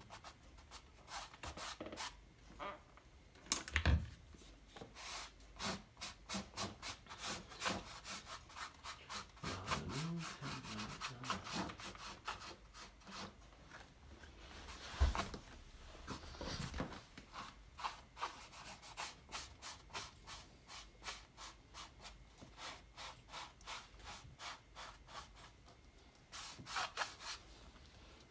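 Paintbrush scrubbing paint onto a stretched canvas in quick repeated strokes, a few a second, with two louder knocks, about four seconds in and midway.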